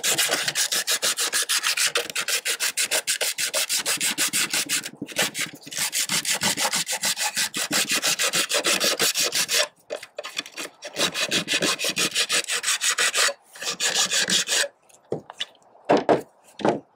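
Sandpaper scuffing the inside end of a fiberglass gutter section by hand, roughing it up so the end cap will bond: fast, scratchy back-and-forth strokes with short breaks. The sanding stops near the end, and a few knocks follow.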